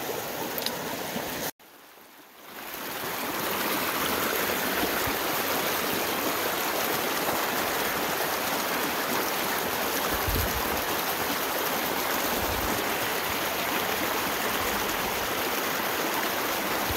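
Small mountain creek running fast and shallow over rocks: a steady rushing babble of water. The sound cuts out abruptly about a second and a half in and fades back up over the next two seconds.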